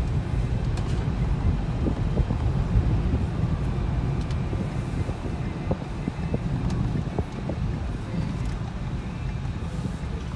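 Vehicle noise: a steady low rumble with a few faint clicks scattered through it.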